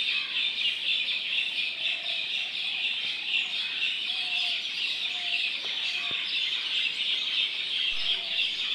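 Many small birds chirping together in a steady, dense, high twittering chorus, with a few short, fainter lower calls now and then.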